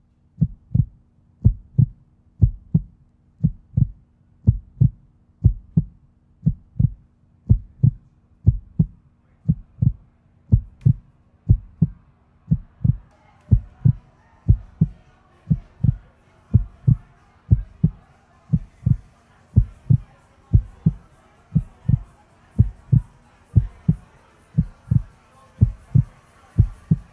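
Heartbeat sound effect: a steady run of slow, low double thumps over a faint hum. From about halfway, the noise of a club crowd fades in underneath.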